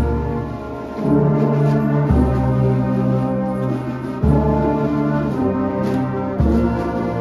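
Uniformed brass band of tubas and euphoniums playing held chords, the deep bass notes strongest, the chords changing every second or two.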